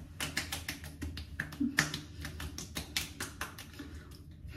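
Palms patting toner onto the face: a quick, irregular run of light skin pats that stops about three and a half seconds in.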